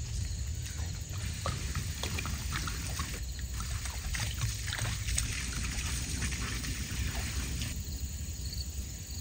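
Water poured from a plastic jug onto the hot coals of a campfire in a metal fire ring, sizzling and crackling as it douses the fire. The sizzle stops abruptly about three-quarters of the way through.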